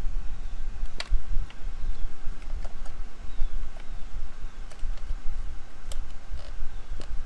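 Scattered sharp plastic clicks and taps as wiring and the controller are tucked into an e-bike's frame housing and its plastic cover is pressed into place by hand, the loudest click about a second in. A steady low rumble runs underneath.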